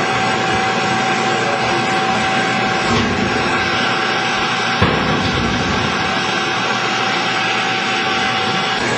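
Air blower forcing air into a wood-fired combustion chamber: a steady rushing noise with a constant whine as the air supply is turned up to drive combustion. One brief knock near the middle.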